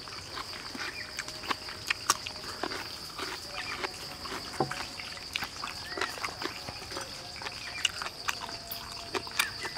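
Close-up eating sounds: chewing and lip-smacking with many short, sharp clicks, and near the end a cleaver cutting into the roast pig head's skin, over a steady high insect drone.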